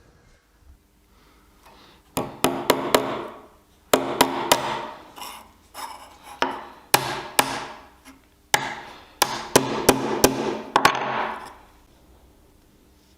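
Hammer strikes, about twenty sharp blows in quick groups, each ringing briefly. They start about two seconds in and stop near the end.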